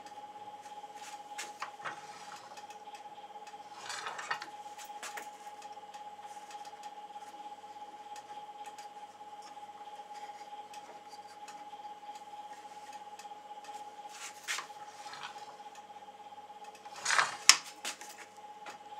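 Small wooden blocks being handled and clamped against a saw's metal fence and table: scattered light knocks, taps and rubs of wood on metal as the hold-down clamp is adjusted, with a louder clatter near the end.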